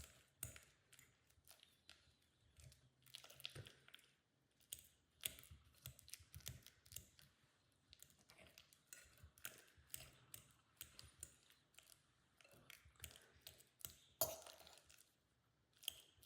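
Near silence broken by faint, irregular light clicks and taps.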